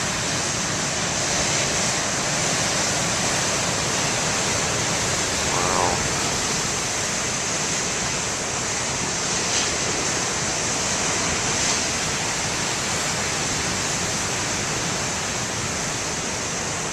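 Big ocean waves breaking: a steady, even rush of surf.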